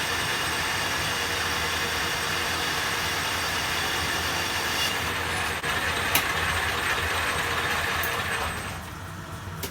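Grazioli Fortuna metal lathe running steadily while taking a turning cut, with a couple of sharp clicks partway through. The sound drops off near the end.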